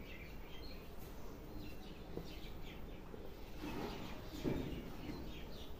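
Birds chirping over a steady background hum, with one dull thump about four and a half seconds in.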